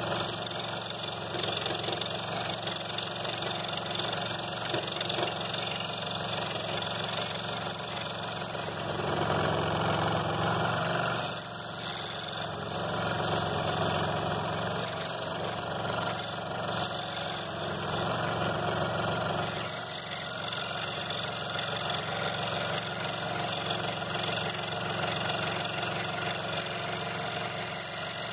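Scroll saw running, its reciprocating blade cutting small inside openings through 3/4-inch pine.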